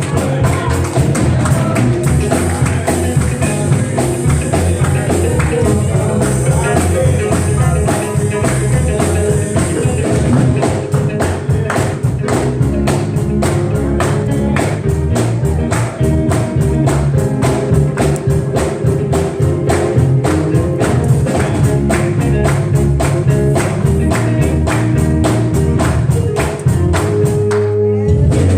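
Upbeat gospel music played without words, with a steady driving beat over a sustained bass line.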